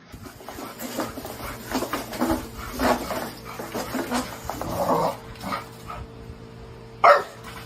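A dog making a series of short vocal sounds over a steady background hum, with a louder, sharper sound just after seven seconds in.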